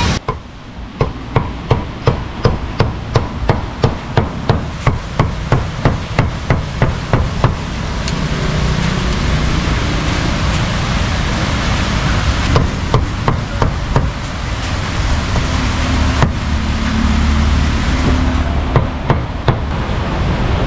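Large knife chopping roast beef: a steady run of sharp knocks, about three a second, then more scattered chops over a steady background hum.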